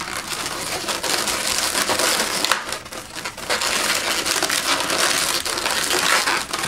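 Latex twisting balloons rubbing against each other and against the hands as they are twisted and worked together, a dense scratchy rubbing that eases for a moment about three seconds in.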